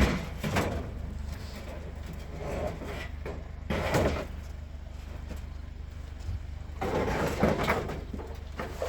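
Scrap metal being handled and stacked onto a load: a few separate knocks and scrapes, the longest cluster near the end, over a steady low hum.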